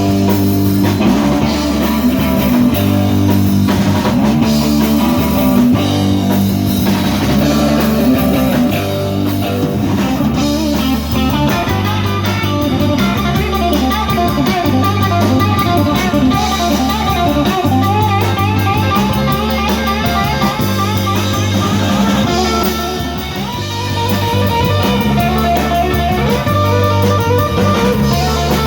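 Blues band playing an instrumental break: an electric guitar plays quick lead lines over a repeating bass line and drum kit.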